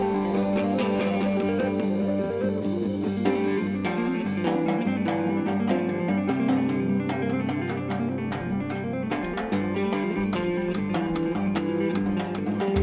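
Live rock band playing an instrumental passage: electric guitar over bass guitar and a drum kit with a steady beat.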